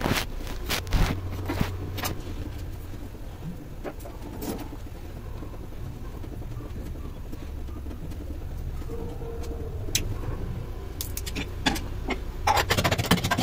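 Steady low rumble with scattered light clicks and knocks, and a quick run of clicks and taps near the end.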